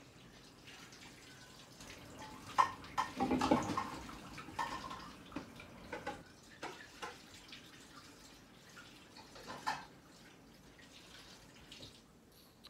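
Paintbrush swished and tapped in a cup of rinse water: irregular small splashes and knocks, busiest about three seconds in.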